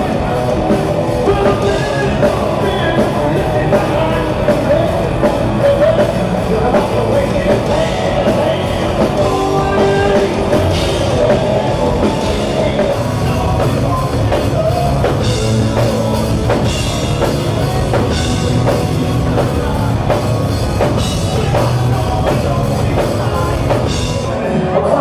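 Live rock band playing loudly: electric guitars and a drum kit, with a male lead singer.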